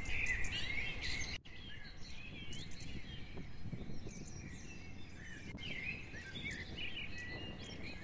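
Small birds chirping and calling over a low steady outdoor background noise, with a brief break in the sound about one and a half seconds in.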